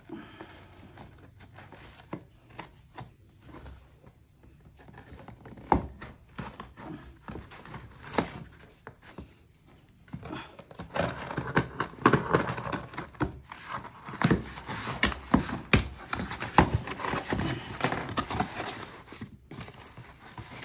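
Scissors slitting the packing tape on a cardboard shipping box: scattered snips, scrapes and sharp clicks, then denser, louder crinkling and tearing of tape and cardboard from about eleven seconds in.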